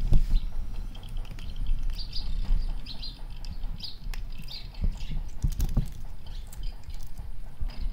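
A cat chewing and crunching on a piece of dried food close to the microphone, with irregular wet clicks and thumps. Small birds chirp several times in short high notes.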